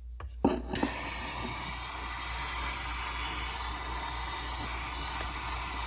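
Gas soldering torch lit and burning with a steady hiss, heating silver sheet for soldering the seams of a box clasp. The hiss comes on suddenly just under a second in.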